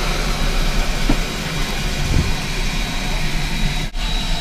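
Geared Shay steam locomotive moving slowly past close by: a steady hiss of steam over a low rumble of the engine and running gear, with a brief drop in the sound near the end.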